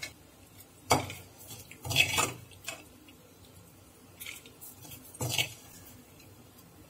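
Metal serving spoon clinking and scraping against a stainless steel bowl and pan in about five separate knocks, as dry minced mutton is scooped out and spread in the bowl.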